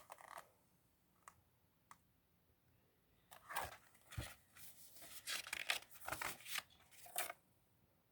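Paper rustling and crinkling in a run of short bursts in the second half, as the pages of a picture book are handled and turned, with a few light clicks before it.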